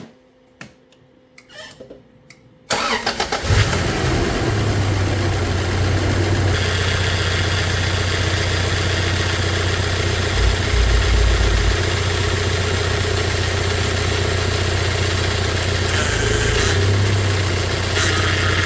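1999 Toyota Hilux Surf engine started about three seconds in, with a brief crank that catches at once, then idling steadily.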